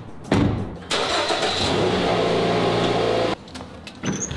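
A car door shuts with a loud thump, then the car's engine starts and runs steadily for about two and a half seconds before cutting off abruptly. Near the end, a lever door handle clicks.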